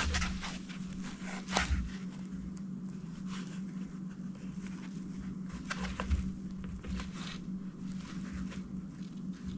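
Steady low hum, with faint rustling and a few light ticks from hands tying a knot in fishing line.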